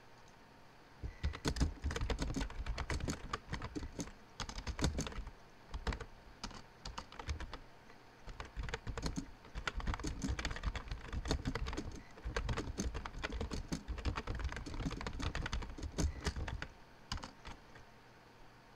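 Computer keyboard typing: quick runs of keystrokes with short pauses between phrases, starting about a second in and stopping shortly before the end.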